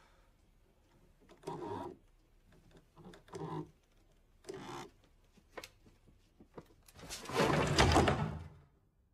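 Rope being hauled through a small ceiling pulley, rasping in three short strokes and then one longer, louder pull about seven seconds in that stops abruptly.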